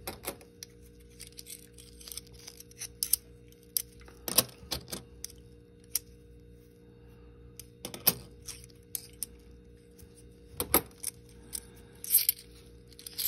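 Kennedy half dollar coins clicking and clinking against each other as they are slid one by one off a stack in the hand and set down on stacks on a table. The clicks come at irregular intervals, with a few louder clacks.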